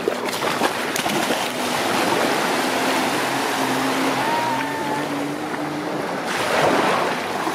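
Shallow surf lapping and water splashing around swimming and wading children, a steady, dense wash of water noise.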